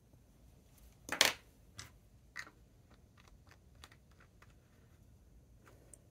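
Small objects being handled and set down on a tabletop: one louder clack about a second in, then a few light clicks and taps.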